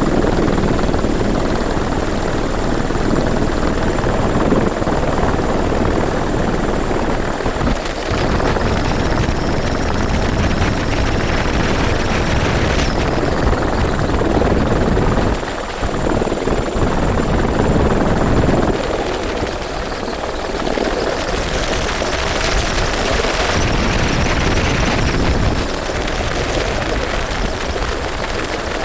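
Helicopter running: a loud, steady rotor and engine noise with a thin high-pitched whine over it.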